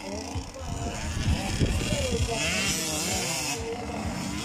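Small motocross dirt bike engines revving as the bikes ride the dirt track, their pitch rising and falling.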